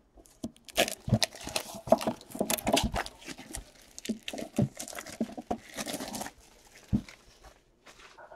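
Plastic shrink wrap crinkling and tearing as it is pulled off a trading card box, with irregular taps and clicks from the box and card cases being handled.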